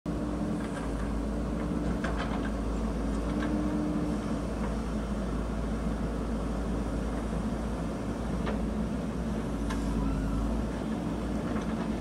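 JCB backhoe loader's diesel engine running steadily at a distance, a constant low hum with a deep rumble. A few faint clicks sound now and then.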